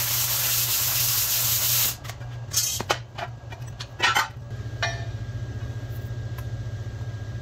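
Plasma cutter arc hissing as it cuts through quarter-inch steel plate, stopping about two seconds in. Then the cut-off strip of plate clanks a few times as it drops and is handled, over a steady low hum.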